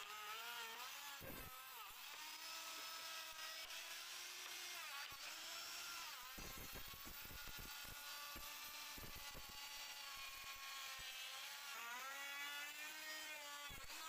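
Handheld electric wood router running, its motor whine sagging and recovering in pitch as the bit cuts a profile along the wooden door frame. A stretch of rapid crackling from the cut comes around the middle.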